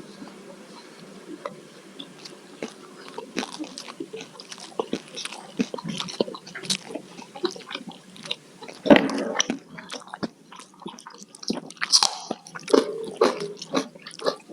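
Close-miked eating: steady chewing and biting with wet smacking clicks and crunchy bites, louder bites about nine and twelve seconds in.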